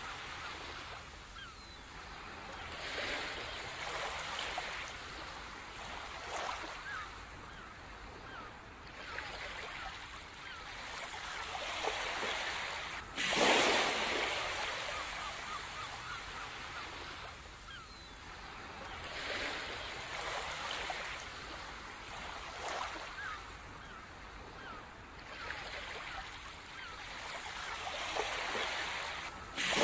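Ocean surf washing onto a beach in slow swells, with a louder wave breaking about halfway through and another at the very end.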